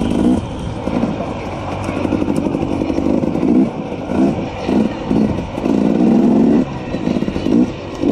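KTM 300 XC's two-stroke single-cylinder engine revving in short on-off bursts as the throttle is worked, with one longer, steadier pull about six seconds in.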